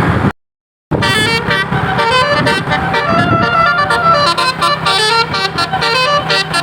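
A bus's Basuri telolet musical horn plays a quick run of short notes that jump in pitch, over a steady low engine hum. The sound cuts out briefly about half a second in.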